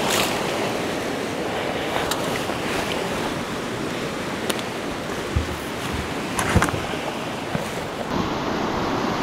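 Steady rush of moving river water from a nearby rapid. At the start there is a sharp splash as a booted foot steps out of the kayak into the shallows, and a few single knocks and scuffs follow, the loudest about six and a half seconds in.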